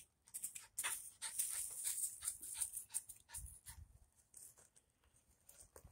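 Small dog panting in quick, rhythmic breaths, strongest in the first three seconds and fainter after that, as it waits excitedly for its ball to be thrown.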